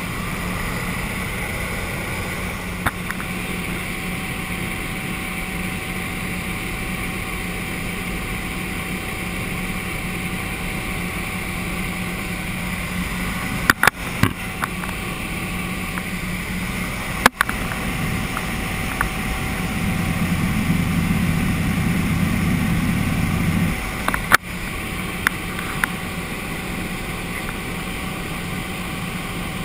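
Steady drone of a Cessna 206's Soloy turbine engine and propeller in flight, with a low, even hum. The low rumble swells for a few seconds about two-thirds of the way through, then drops back suddenly. A few sharp clicks cut through the drone.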